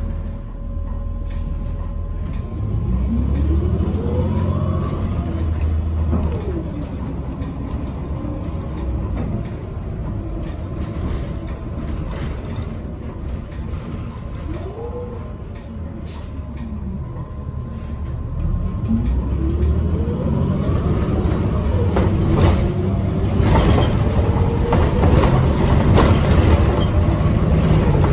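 NABI 45C CNG city bus with a Cummins Westport L9N engine and Allison automatic transmission driving in traffic. Its drivetrain whine rises in pitch as it gathers speed and falls away as it slows: a few seconds in, briefly around the middle, and again from about two-thirds through, under a steady engine rumble. Clicks and rattles build near the end.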